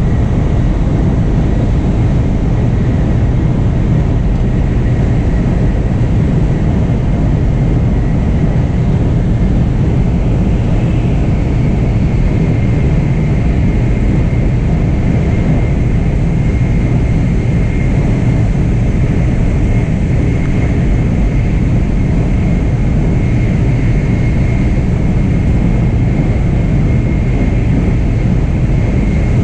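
Steady rumble of a Nozomi Shinkansen bullet train running at speed, heard from inside the passenger cabin while it passes through a tunnel. A faint high whine sits above the rumble and becomes a little clearer about a third of the way in.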